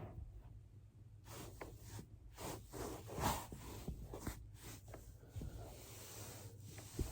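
Body rolling on a foam roller: soft rubbing and swishing of skin and clothing against the foam, with a sharp click near the end.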